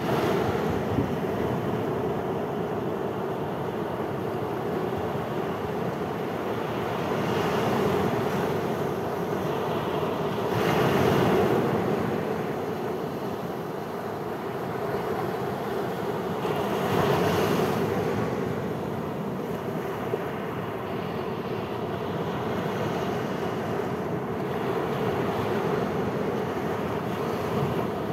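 Sea surf breaking on a sandy beach: a steady wash of waves that swells louder several times as bigger waves crash in.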